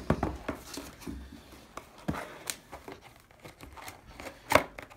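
A box's slide-off cover being worked off by hand: rubbing and scraping of the packaging with scattered light knocks, and one sharper knock about four and a half seconds in.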